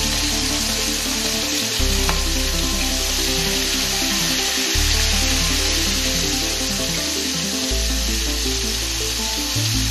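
Flour-battered squid pieces deep-frying in hot oil in a stainless steel wok: a steady, dense sizzle as the pieces cook. Under it, background music with a bass note that changes every two to three seconds.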